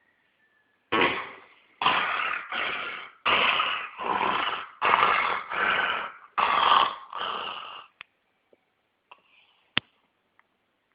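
A pet snoring: a quick run of about eight rasping snores coming in pairs, one on each breath in and out, which stop about eight seconds in. A few faint clicks follow.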